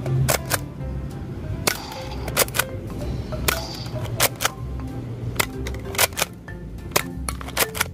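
A Nerf Fortnite dart blaster being repeatedly cocked by its plastic bolt handle and fired, giving sharp plastic clicks, often in pairs, every half second to a second. Background music plays underneath.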